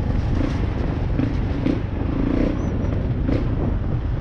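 Husqvarna 701 Enduro's big single-cylinder engine running at varying throttle on the move, with a few short knocks over rough ground.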